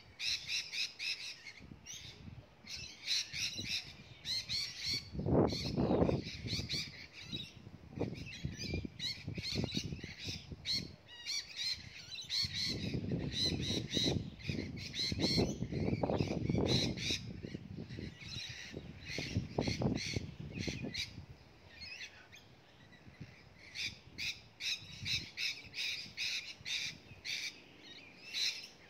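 Small birds chirping and calling in repeated short bouts, with a low uneven rumble underneath in two longer stretches.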